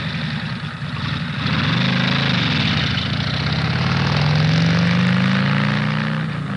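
Vehicle engine running under load, its pitch climbing steadily and then dropping suddenly near the end, as at a gear change.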